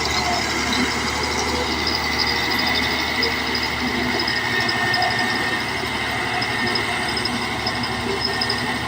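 Caterpillar D8 bulldozer's diesel engine running steadily under work, with a steady high-pitched whine over it.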